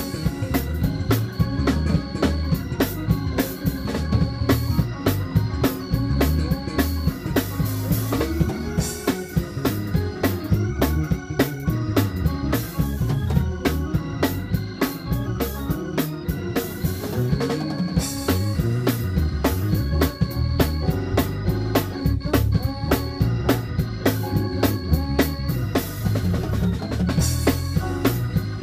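Live gospel band playing instrumentally: Hammond-style organ chords over a drum kit and electric bass, with keyboard, on a steady beat.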